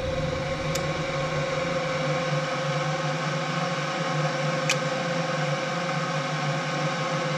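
Steady machine hum with a steady whine, broken by two faint sharp ticks, one about a second in and one about halfway through.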